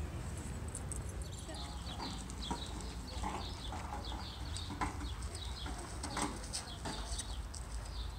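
Outdoor ambience: a steady low rumble with many short, high chirps of small birds from about a second in, and a few sharp knocks.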